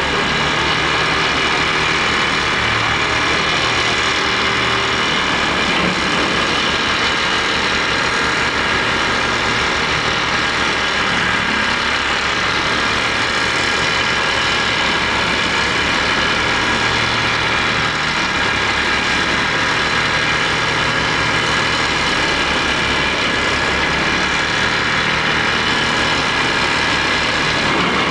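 Hitachi tracked excavator running steadily under load, its engine and hydraulics working a pile-driving attachment on the boom as it drives a wooden breakwater pile. A fast, even vibration with a steady high-pitched whine over it.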